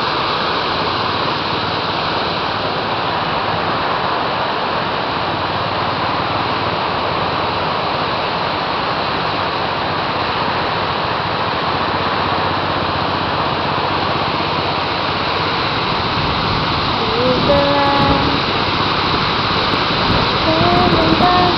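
Floodwater pouring through a diversion dam: a loud, steady rush of water. A person's voice is briefly heard near the end.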